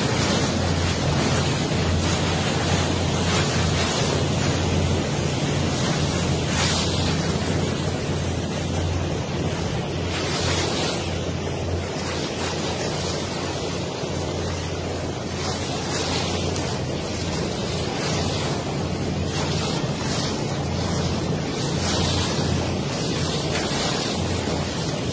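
A boat under way at sea: a steady low engine hum under water rushing past the hull, with wind buffeting the microphone in gusts.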